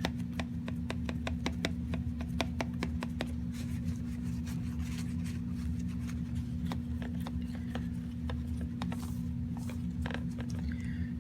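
Small clicks and scratchy rubbing as dust is cleaned off a graphics card's circuit board by hand, rapid for the first few seconds and then sparser, over a steady low hum.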